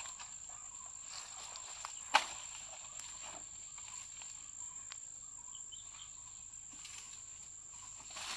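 Insects trilling in one steady high tone, over light rustling of leaves and stems, with a single sharp snap about two seconds in.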